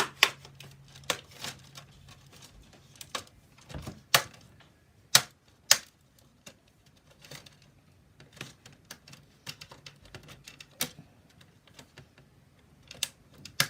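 Plastic case of a Samsung RC512 laptop being pried apart along its seam: irregular sharp clicks and snaps as the clips let go, a handful of them loud.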